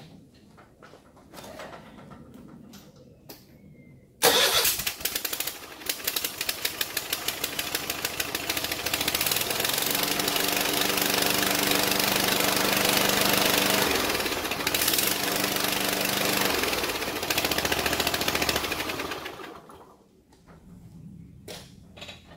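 Kohler KT745 V-twin mower engine started for the first time after installation: it starts suddenly about four seconds in, pulses unevenly for a few seconds, then settles into steady running before being shut off near the end.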